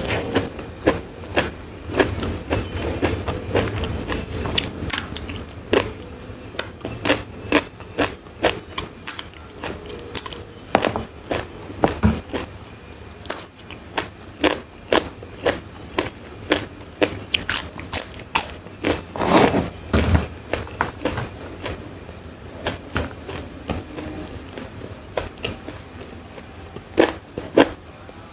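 Close-miked biting and chewing of crunchy food, with a run of sharp, crisp crunches at about one or two a second and short pauses between the runs.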